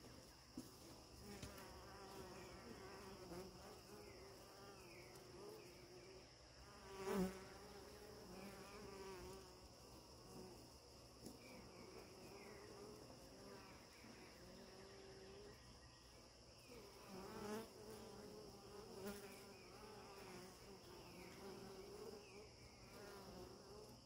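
Honeybees buzzing faintly around the hive, the buzz wavering in pitch as they fly. One bee passes close to the microphone about seven seconds in, louder for a moment, and another passes around seventeen seconds in.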